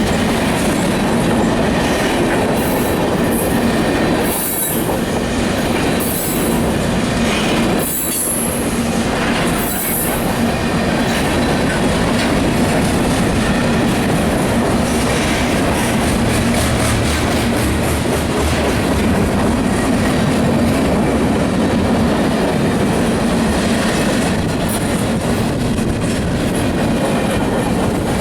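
CSX freight train cars rolling past at close range, a steady loud rumble of wheels on rail with rail-joint clatter. Brief high-pitched wheel squeals come in the first ten seconds.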